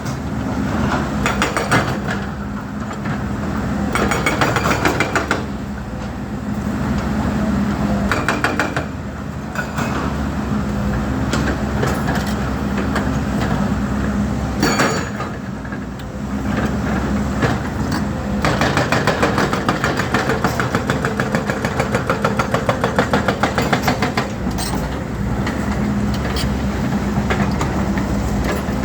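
Volvo EC210D crawler excavator's diesel engine running steadily under load, with a rapid, rhythmic metallic clatter that swells and eases as the machine works.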